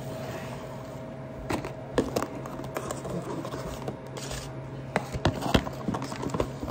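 Kitchen dishes being handled: a glass dish and a plastic food-container lid clinking and knocking against each other and the counter. There is a cluster of sharp knocks about two seconds in and another about five seconds in, over a steady low hum.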